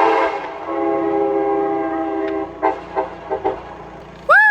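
Locomotive air horn blowing a chord: the blast dips briefly just after the start, then holds until it cuts off about two and a half seconds in. A few short knocks follow, and near the end a person lets out a whoop that falls in pitch.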